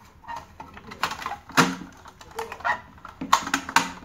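Irregular clicks and metallic taps of a screwdriver working the fixing screws of a sandwich maker's metal heating plate, with a few sharper knocks, loudest about a second and a half in and twice near the end.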